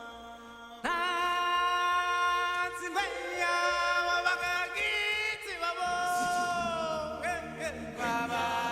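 Music: a voice singing long held notes in a chant-like style, coming in loudly about a second in.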